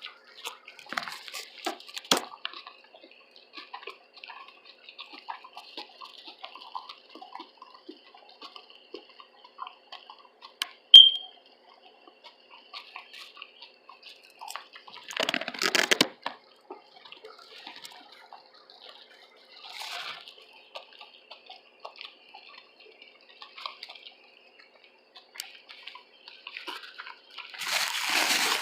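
Close-miked wet chewing of a loaded veggie tuna sub sandwich: a steady run of small smacking and crackling mouth sounds, with louder bites about fifteen seconds in and again near the end. A brief, sharp, high click stands out about eleven seconds in.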